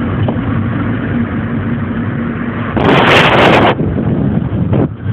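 Car driving, heard from inside the cabin: steady engine and road noise. About three seconds in comes a loud hissing rush lasting about a second, and a short click follows near the end.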